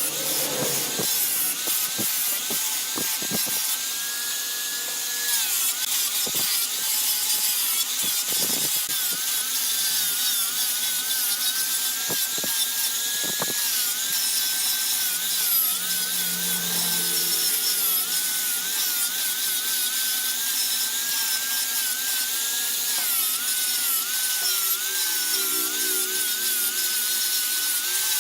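Wood being turned on a lathe, a cutting tool scraping the spinning workpiece with a steady hiss, over a motor whine that wavers and dips now and then under the cut.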